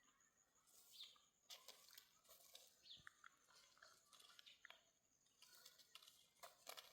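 Near silence: faint rustling and clicks, with a few short high chirps.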